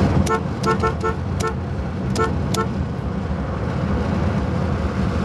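Car horn tooted in short taps, about seven quick toots in the first three seconds, over a steady low rumble of vehicle noise.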